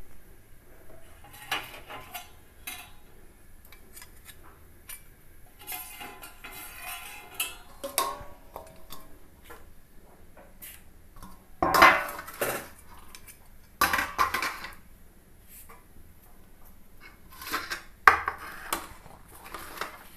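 Metal kitchen utensils and pots being handled, clinking and clattering in scattered bursts, the loudest about twelve and fourteen seconds in.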